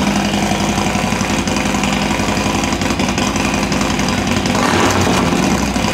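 Harley-Davidson Road Glide's 131 cubic-inch V-twin, with Screaming Eagle heads and a Road Rage III exhaust, running at a low, loping idle. Its note swells briefly about four and a half seconds in.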